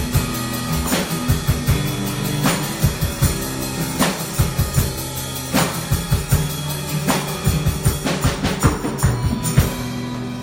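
Worship band music with no singing: a drum kit keeps a steady beat over held bass notes and chords. The drum hits stop about nine and a half seconds in, leaving the held chords ringing.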